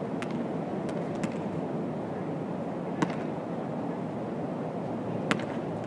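A basketball bouncing on a hard court surface, a few separate sharp bounces with the two loudest about three and five seconds in, over a steady low rumble.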